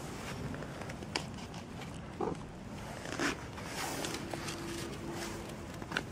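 Rustling and handling noise from very close to a cat, with a few sharp clicks and a short cat call about two seconds in that falls in pitch.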